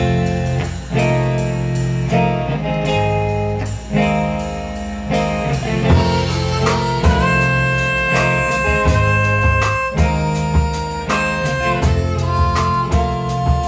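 Live rock band playing an instrumental passage: electric guitar notes ringing out over bass guitar and a drum kit with steady cymbal strokes.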